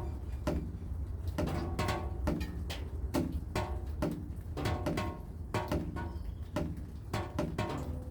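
Rain dripping in a rhythm: drops falling about two to three times a second, each making a short pitched plink, over a steady low hum.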